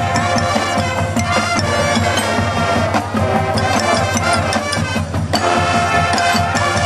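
Marching band playing its halftime show music: sustained pitched notes over a steady drum beat.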